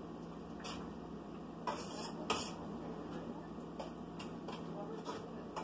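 A metal utensil stirring in a cooking pot, clinking lightly and irregularly against it a handful of times over a steady low hum.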